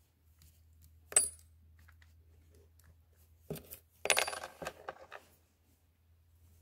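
Small metal parts clinking on a wooden workbench: one sharp, ringing clink about a second in, then a brief cluster of clattering clinks around four seconds in.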